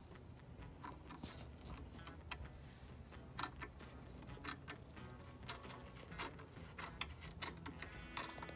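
Hand tap in a T-handle tap wrench cutting 10-24 threads into a drilled hole in a metal step bushing: faint, irregular metallic clicks and ticks, about one or two a second, as the tap is worked round.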